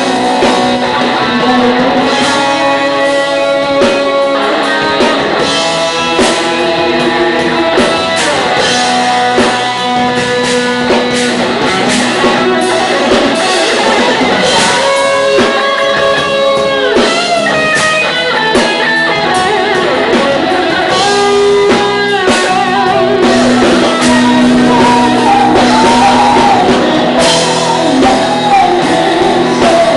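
Live rock band playing loudly: electric guitars with drums, sustained notes and bending lead lines.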